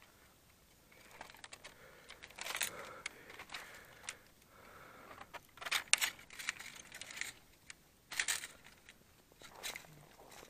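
Irregular crunching footsteps on packed snow, with rustling as the camera and model plane are carried.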